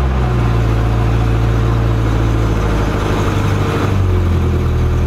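Nissan 240SX (S14) engine idling steadily moments after starting, heard from inside the cabin.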